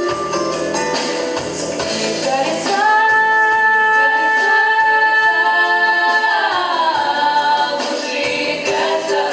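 Pop vocal ensemble singing in harmony with a band accompaniment. About three seconds in, the voices hold a long chord, then slide down in pitch together.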